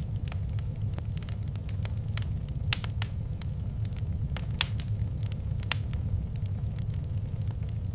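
Wood fire crackling in a fireplace over a steady low rumble, with scattered small ticks and three sharper snaps.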